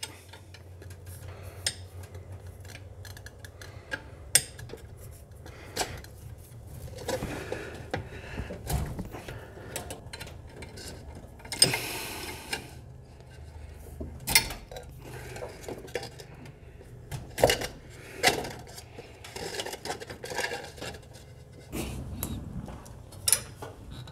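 Wrench clinking and clicking against the brake line fittings on a master cylinder as the lines are loosened, in irregular metal taps, with a brief rushing, scraping noise about halfway through.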